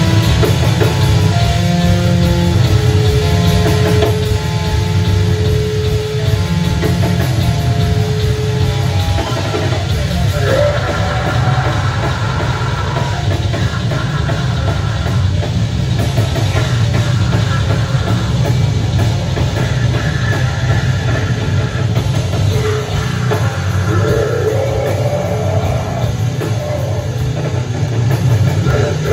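Live rock band playing loudly on electric guitar, bass guitar and drum kit, with held guitar notes in the first several seconds.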